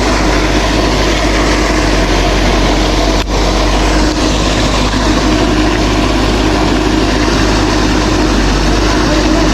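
A loud, steady engine-like drone with a hiss of noise, running unchanged, with a brief dropout just over three seconds in.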